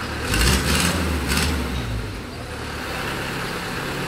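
Heavy diesel engine of the sideloader truck rumbling and rising under load, with a few short hissing bursts in the first second and a half. It then settles to a steady run.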